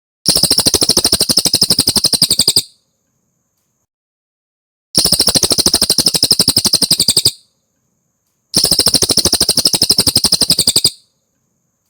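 Cililin songbird song: three loud, near-identical rapid trills of about two seconds each, separated by short silences, high-pitched and fast-pulsed.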